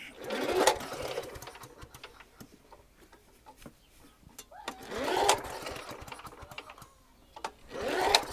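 Hayterette lawn mower's petrol engine pulled over three times on its recoil starter, near the start, about five seconds in and near the end. Each pull is a short whirring rasp that dies away without the engine firing: it has no spark.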